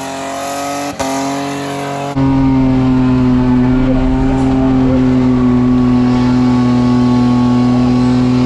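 Ford Falcon wagon's engine held at high, steady revs while the car skids, spinning its rear tyres. The revs dip briefly about a second in. After about two seconds the sound changes to the engine heard inside the cabin, louder and holding one steady pitch.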